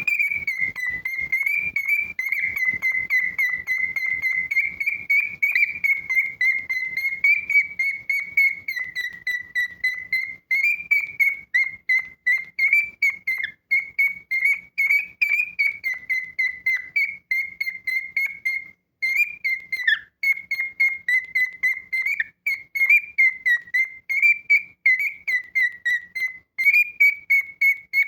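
Male cockatiel whistling its song: a long run of quick, warbling whistled notes that waver around one pitch, with only a few short breaks.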